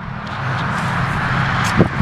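Cummins inline-six diesel idling steadily with the hood open. The engine has a knock that one onlooker calls a rod knock and another calls fuel knock.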